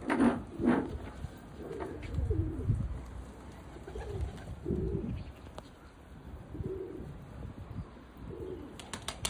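Domestic pigeons cooing, repeated low rolling coos every second or two, with two louder short sounds right at the start.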